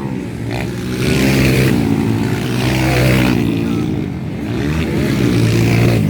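200 cc motocross bikes racing, several engines revving up and down in pitch as riders work the throttle.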